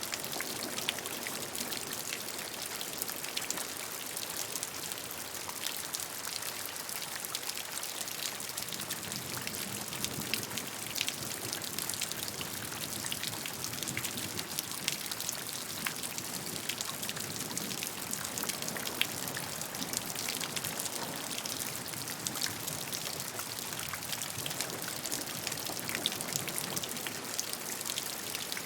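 Steady rainfall: an even hiss of rain with many individual drops pattering on a surface.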